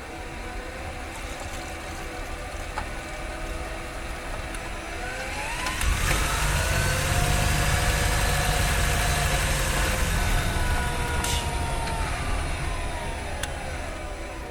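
Honda Freed Hybrid's drivetrain heard from the engine bay. A motor and gear whine rises in pitch as the car speeds up, and the 1.5-litre four-cylinder petrol engine cuts in with a low rumble about six seconds in. Near the end the whine falls away as the car slows and the engine drops out.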